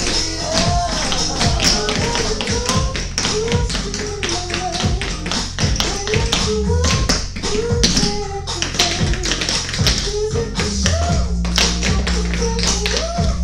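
Tap shoes striking a studio floor in quick, dense rhythms as several dancers practise together, over recorded music.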